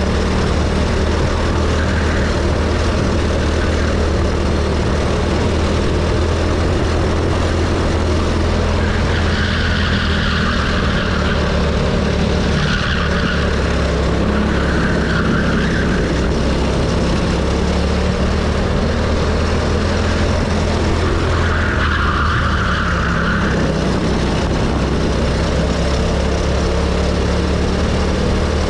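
Go-kart engine running with a steady, loud drone heard from on board as the kart laps, its pitch shifting a little with throttle. The tyres squeal through the corners four times, the longest spell about three-quarters of the way through.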